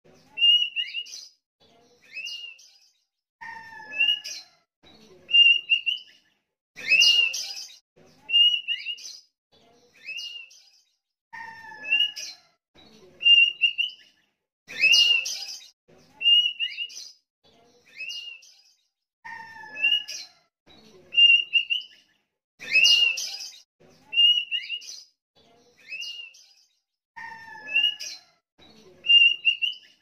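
Sooty-headed bulbul (kutilang) singing: short phrases of clear whistled notes, several with a quick downward hook, repeating every few seconds in much the same pattern. Every few phrases open with a louder, harsher note.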